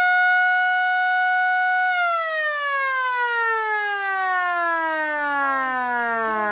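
Siren on a Willys Jeep CJ2A, so loud, wailing at a steady high pitch and then winding down in a long falling glide from about two seconds in.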